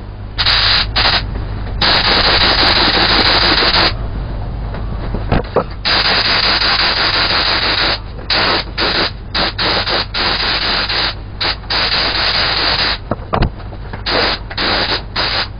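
Gravity-feed paint spray gun hissing as compressed air atomises clear coat onto headlight lenses, the trigger pulled in bursts. There are a few long passes of about two seconds in the first half, then a run of short, quick bursts near the end.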